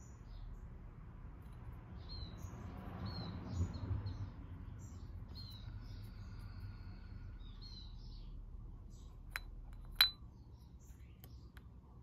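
Small birds chirping in the background in short, high, repeated calls, over quiet handling noise. Near the end come two sharp clicks, the second the loudest, as a variator slider is set into place on the aluminium plate of a scooter's CVT variator.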